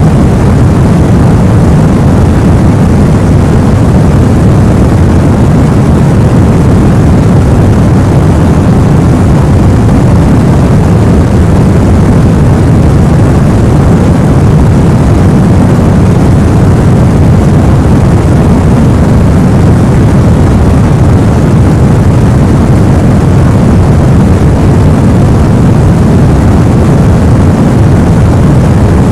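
Steady, unchanging deep rushing noise: a sleep-aid noise track for babies, heavy in the bass like brown noise.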